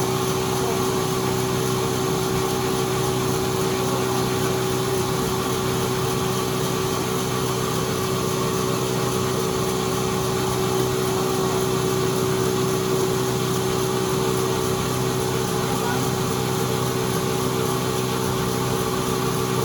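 Sawmill machinery running at a constant pitch: a steady motor hum with one strong held tone.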